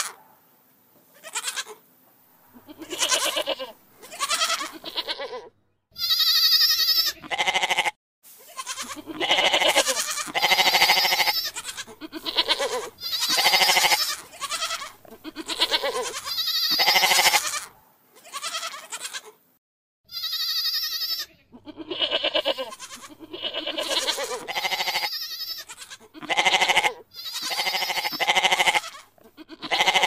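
Domestic goats bleating: a long series of separate bleats, each about half a second to a second and a half long, with short pauses between them.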